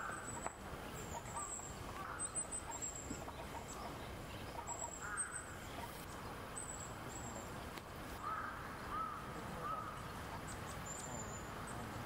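Long-tailed tits calling: repeated very high, thin, short notes, with several lower arched calls from another bird mixed in.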